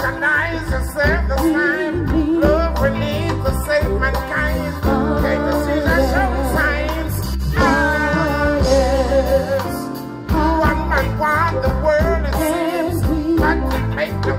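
Live reggae band with a male lead vocalist singing over a heavy bass line, amplified through the stage sound system.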